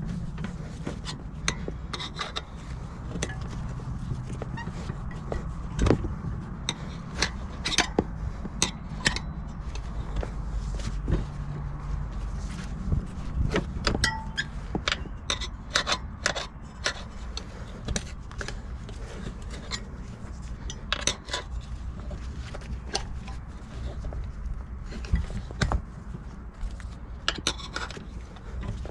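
Steel tire spoons levering a dirt bike tire's bead over the rim: irregular metal clinks and knocks, with scraping and rubbing of rubber on the rim. A low steady hum runs underneath.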